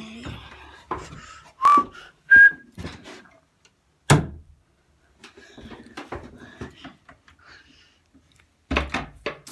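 Two short whistled notes, the second higher than the first. A sharp knock follows about four seconds in, and a quick run of clicks and knocks comes near the end.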